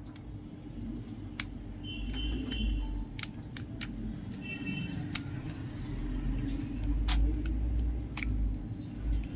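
Small clicks and taps of a metal opening tool and a phone being handled on a workbench, over a steady low hum and some low rumbling.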